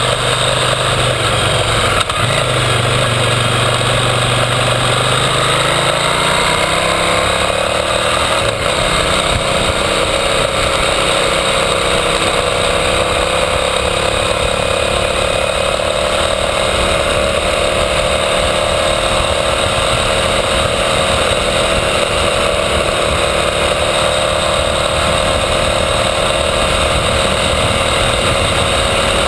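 KTM 990 Adventure's V-twin engine running under way. It climbs in pitch as the bike accelerates over the first several seconds, then holds a steady cruise, with wind and road noise buffeting the camera's microphone.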